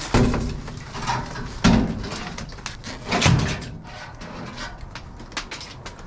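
Knocking and clattering of a discarded fan being pulled out from among the junk in a dumpster. Three louder bumps come in the first three and a half seconds, followed by lighter clicks and rattles.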